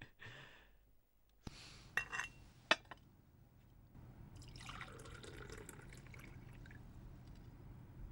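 Glass clinking a few times, then water poured from a glass pitcher into a drinking glass, a steady splashing trickle from about four seconds in.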